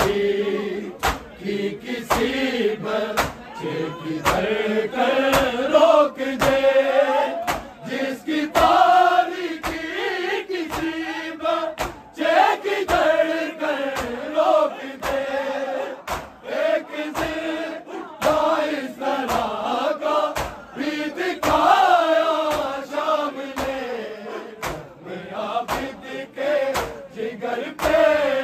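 A group of men chanting a mournful Urdu noha in unison, over a steady rhythm of sharp strikes from matam, hands beating on chests in time with the recitation.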